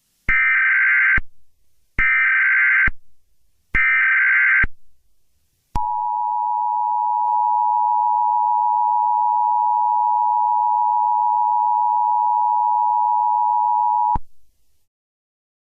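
Emergency Alert System tones: three short bursts of SAME digital header data, about a second each, then the two-tone EAS attention signal (853 and 960 Hz together) held steady for about eight seconds before cutting off suddenly.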